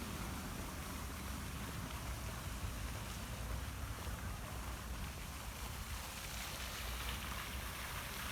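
Steady outdoor background noise: a low, uneven rumble under an even hiss, with no distinct events.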